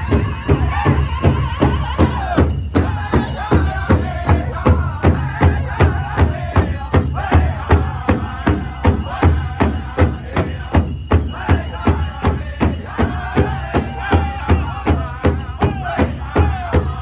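Powwow drum group striking a large shared drum with drumsticks in a steady beat, about three strikes a second, while the group sings in unison over it.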